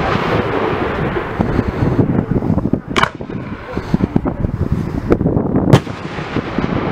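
Fireworks display: aerial shells bursting overhead, with two sharp bangs about three seconds and near six seconds in over a steady run of smaller pops and crackle.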